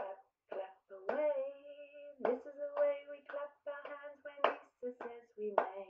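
A woman singing a children's clapping song, with held notes, while clapping her hands in time. The claps are sharp and come at intervals through the singing.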